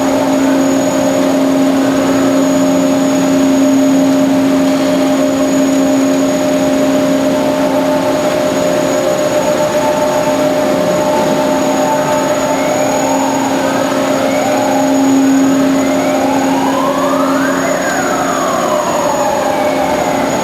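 Band saw running with a steady multi-tone hum. In the second half, rising-and-falling pitch sweeps come and go, the largest peaking a couple of seconds before the end.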